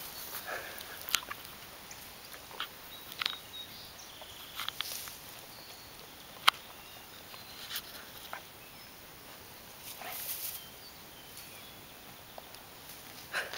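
A dog eating raspberries straight off the canes: irregular sharp clicks and snaps of its jaws and teeth, with a few brief rustles of the leaves. The sharpest snap comes about halfway through.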